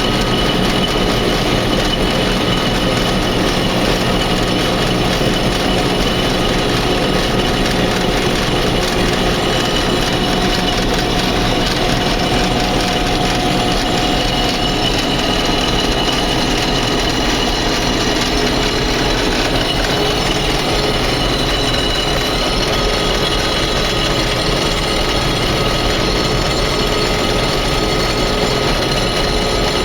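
Combine harvester running steadily while harvesting wheat: a constant, loud machine drone with several steady whining tones over it.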